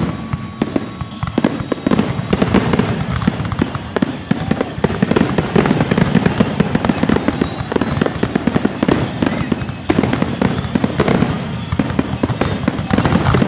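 Fireworks grand finale: a rapid, almost unbroken barrage of aerial shell bursts, one bang running into the next.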